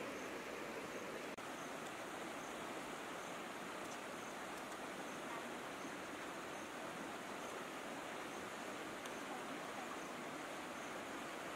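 Steady, even rush of a flowing river.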